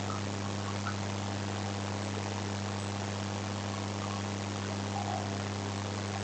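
Steady low electrical-type hum with an even background hiss, unchanging throughout: the recording's background noise in a pause between spoken words.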